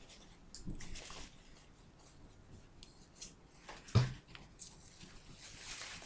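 Paper towel rubbing and rustling against a plastic squeeze bottle's clogged nozzle as it is wiped clean, with a single dull knock about four seconds in.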